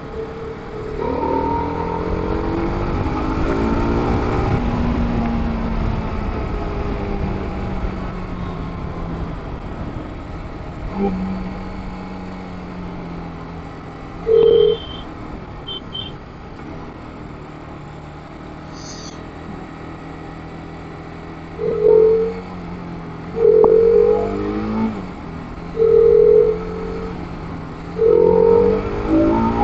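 TVS Apache RR 310's single-cylinder engine accelerating through the gears and then holding a steady pace, with low wind rumble. In the second half, about five short horn beeps.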